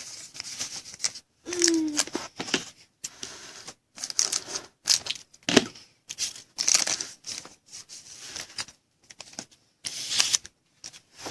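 Trading cards and their wrappers being handled, with intermittent crinkling, tearing and scraping in short irregular strokes.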